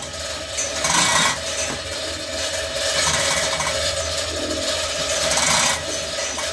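Rasping, scraping metal noises in bursts, about a second in, around three seconds and again near the end, from the chains and chain hoists holding a ship's crankshaft as it is shifted. A steady machinery hum runs underneath.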